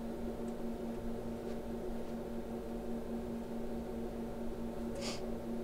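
Steady low electrical hum made of several held tones, with one low drone the strongest. A short soft hiss comes about five seconds in.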